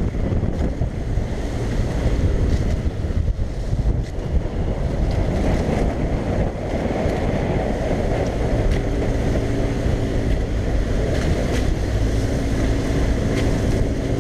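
Small motorboat's engine running while under way, with wind buffeting the microphone; a steady engine hum comes through more clearly from about nine seconds in.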